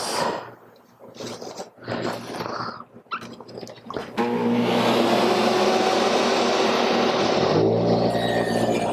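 A few knocks and handling noises of wood being moved, then about four seconds in a woodworking power tool's motor starts up and runs steadily with a loud hum and hiss, its tone shifting a little near the end.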